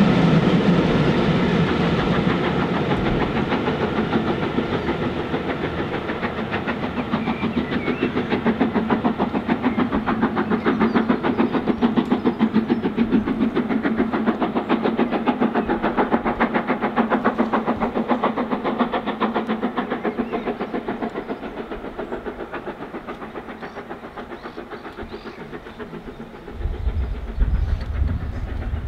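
A steam-hauled passenger train, the 4-6-2 locomotive 46233 Duchess of Sutherland with its coaches, running past with a fast, even clatter of wheels on the rails. The clatter slowly fades as the train draws away. Near the end a sudden low rumble comes in.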